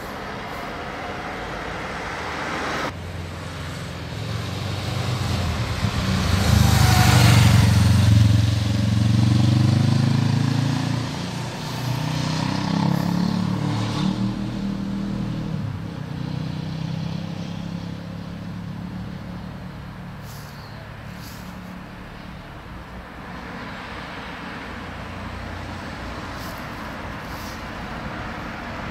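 A motor vehicle drives past close by over steady background traffic noise. Its engine gets louder to a peak about seven or eight seconds in, the pitch sliding as it goes, then fades away.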